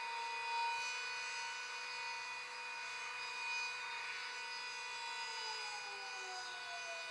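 Outdoor warning sirens: one holds a steady alert tone. From about five seconds in, a second siren's pitch falls, as in a wail signal.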